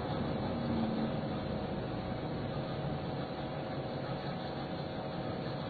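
Steady rushing noise with a faint low hum, even throughout, with no bang or sudden event.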